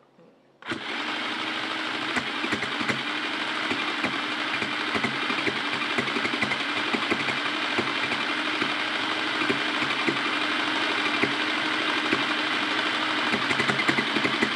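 Electric sewing machine running at a steady speed, stitching a seam to close the stuffed piece. It starts suddenly less than a second in, a fast, even needle rattle.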